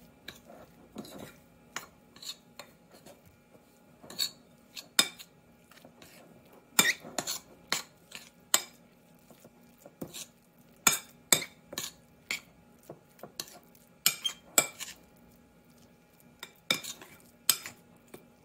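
Metal fork stirring a thick ricotta and shredded-cheese mixture in a porcelain bowl, clinking and scraping against the bowl. The sharp clinks come in irregular clusters with short pauses between them.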